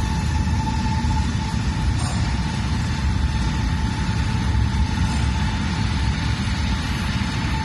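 A steady, deep rumbling drone with a faint held tone above it, the ambient soundscape of an immersive light-and-sound art installation.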